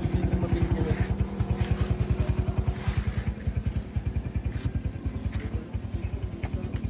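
Small engine running steadily, with an even, rapid thudding of about ten beats a second that eases off slightly in loudness.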